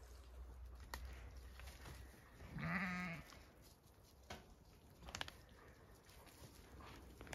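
A Zwartbles ewe bleats once, a single call of under a second about two and a half seconds in, amid a few faint taps and rustles.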